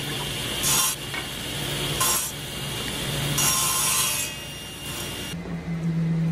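Table saw running, crosscutting short wooden staves fed with a miter gauge: three louder bursts of the blade biting into wood over the motor's steady hum. The cutting stops about five seconds in, leaving the saw's motor running on its own.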